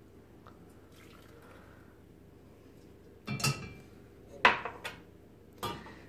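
A spoon knocking against a bowl of onion, garlic and hot water three times, about a second apart, as stirring begins.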